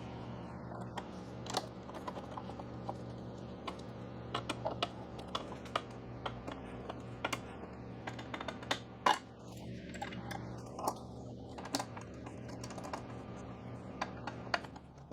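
Hand tools clicking and clinking irregularly against steel bolts and a mounting bracket as a wrench and hex key are repositioned to tighten the bolts, over a steady low hum.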